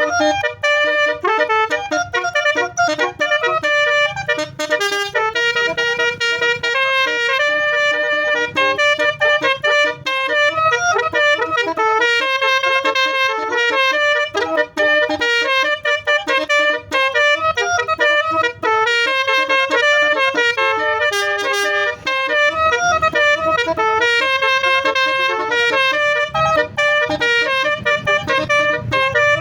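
Basuri melodic air horn playing a tune, one note after another in quick steps, loud and continuous.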